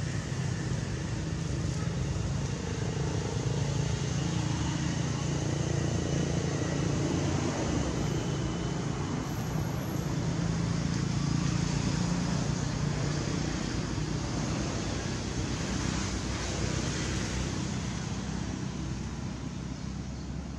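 Steady outdoor background noise: a low hum under an even hiss, like distant traffic or a motor, with faint thin high tones drifting in and out.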